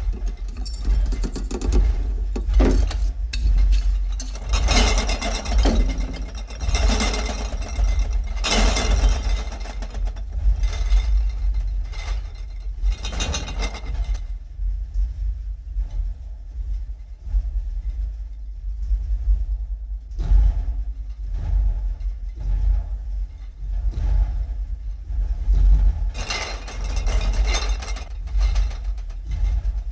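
Sound-effect monster footsteps: heavy stomps of a giant creature over a continuous deep rumble. The louder, crunching steps fall every couple of seconds in the first half and return near the end.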